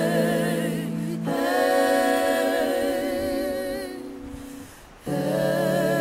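Choral music: several voices singing slow, held chords without instruments, with a wavering vibrato. The singing thins and fades about four seconds in, then a new chord comes in strongly a second later.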